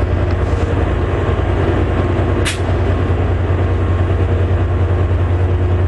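Diesel locomotive engine running, a loud, steady low drone. A brief, sharp high-pitched sound cuts in about two and a half seconds in.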